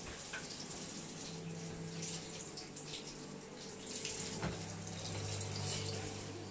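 Kitchen tap running into a sink, with a steady hum beneath it and a short clink about four and a half seconds in.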